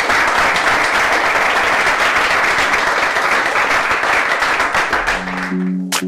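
Audience applauding steadily. Near the end the applause fades and music comes in.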